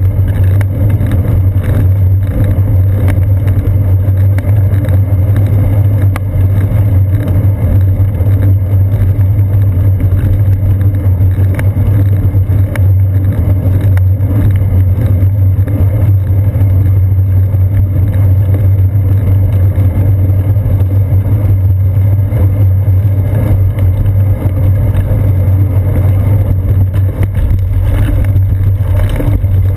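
Steady low rumble of wind and road vibration picked up by a seat-post-mounted GoPro as the bicycle rolls along a paved path, loud and unchanging with no distinct events.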